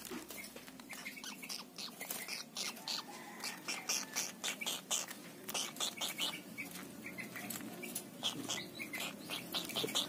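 Pond heron chicks giving short, high chirping calls, some in quick runs of several a second.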